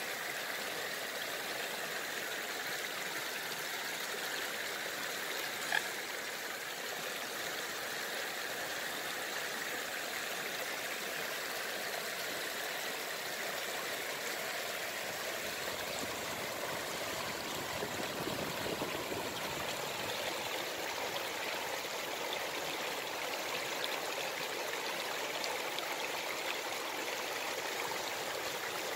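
Water rushing and splashing steadily over a stony edge at the shore, a continuous flowing-water sound. A single short knock about six seconds in.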